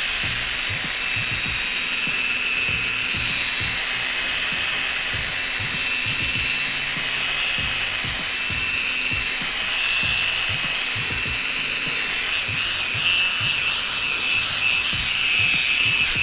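Electric drill spinning a 1500-grit sanding disc against a plastic headlight lens: a steady high whine over a sanding hiss, cutting off sharply near the end.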